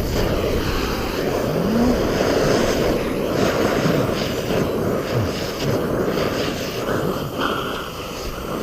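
A handheld heating tool blowing a steady, loud rushing roar as it heats the kayak's plastic hull around the hole.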